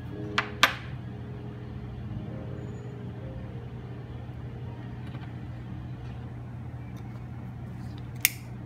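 Steady low hum of the room, with a few sharp metallic clicks from stainless steel orthodontic wire and tools being handled on a hard tabletop: two close together less than a second in, and one near the end.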